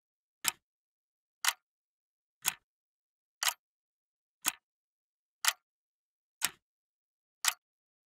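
A clock ticking once a second, each tick a short sharp click with silence between.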